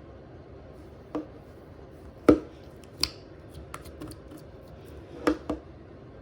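Slime being pressed and squeezed by hand, giving scattered sharp pops and clicks, the loudest about two seconds in and a quick pair near the end.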